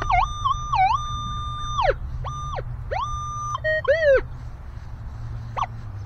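Minelab Equinox 900 metal detector giving high target tones as the coil passes over a target reading in the 50s. The tone swoops up and down and holds for more than a second at a time, breaks into several shorter tones, then turns into quick short chirps near the end.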